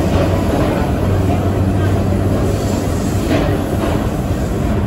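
Vintage R9 subway car running through a tunnel, heard from inside: a steady rumble of wheels on the rails with a low hum beneath it.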